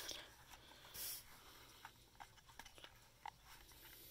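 Near silence with a soft rustle about a second in and a few faint clicks: handling of a beeping alarm clock whose alarm fails to go off because it is broken.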